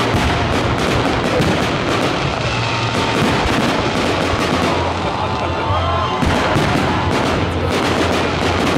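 Fireworks shells bursting in quick succession, a dense run of bangs and crackles with hardly a gap between them.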